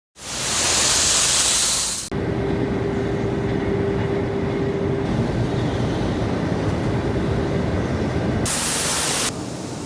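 Industrial sound effects: a loud rush of hissing gas for about two seconds, then low rumbling machinery noise with a steady hum, cut by a second short hiss burst near the end.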